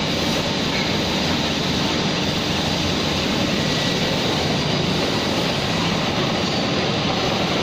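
Steady drone of industrial machinery: an even, unchanging noise with a low hum underneath.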